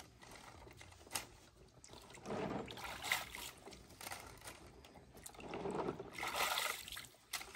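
Hands sloshing water in a plastic basin while washing white plastic hydroponic planting cups, in two spells of splashing, with a few sharp clicks of the cups knocking together.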